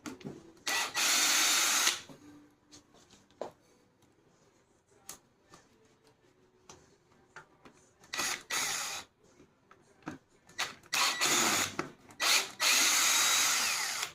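Power drill-driver running in several bursts of about a second or two, with small clicks and knocks between them, as bolts are driven out to take apart a 16 gpm soft-wash pump.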